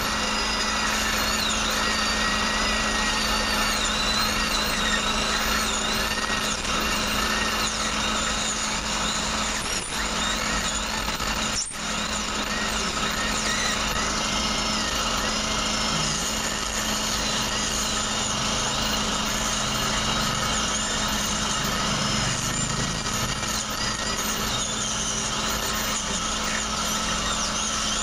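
Dental handpiece drilling on an impacted wisdom tooth during surgery, running steadily, with a surgical suction tip drawing alongside it. The sound dips briefly about twelve seconds in.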